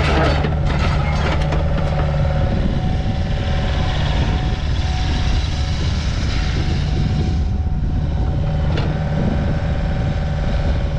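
Volvo EC55B Pro midi excavator's diesel engine running steadily, with a steady whine over it. There are some clicks and knocks in the first couple of seconds.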